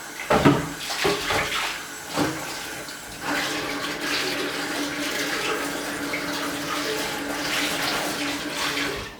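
Kitchen tap running as a blender jar is washed: a few knocks of the jar being handled in the first couple of seconds, then a steady stream of running water from about three seconds in, with a faint held tone, shut off abruptly near the end.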